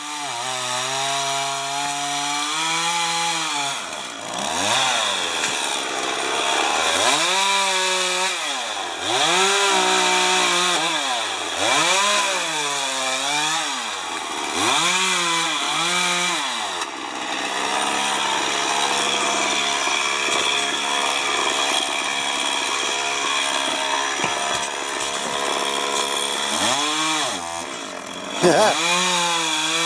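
Two-stroke chainsaw cutting spruce, revving up and falling back over and over. About halfway through it holds a steady pitch for several seconds, then revs up and down again near the end.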